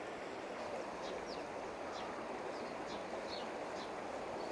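Steady rush of a fast-flowing river over shallow weirs, with faint, scattered bird chirps.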